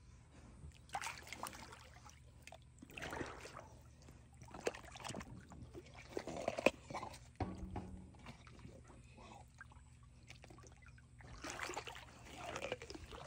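Pool water sloshing and splashing in irregular bursts as a black big cat wades and paws at and bites a floating watermelon.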